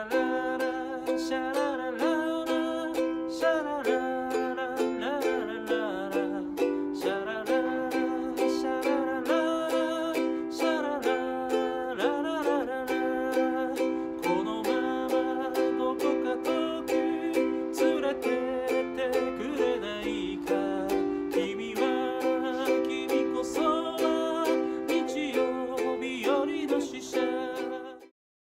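Ukulele strumming chords in a steady rhythm, about two strums a second; it stops abruptly near the end.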